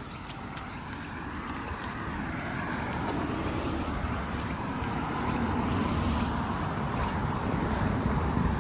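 A vehicle running, growing steadily louder as it draws near.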